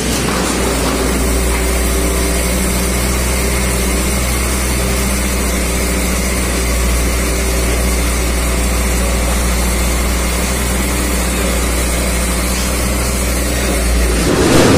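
The diesel engine of a scrap truck with a loader crane, running steadily at a constant speed while it powers the hydraulic grab.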